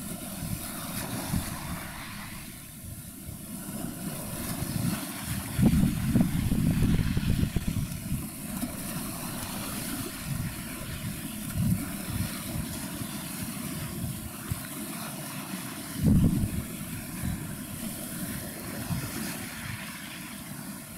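Wind rumbling on the microphone in uneven gusts, over a steady faint hiss.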